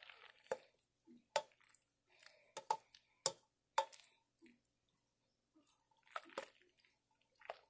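A spoon stirring macaroni salad in a stainless steel pot: soft wet squishing of the dressed pasta, broken by sharp, irregular clicks as the spoon knocks against the side of the pot.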